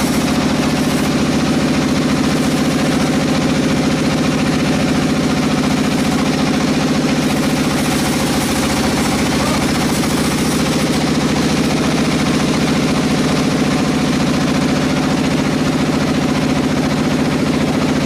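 Sawmill engine running steadily with a fast, even beat, holding the same pitch and level throughout.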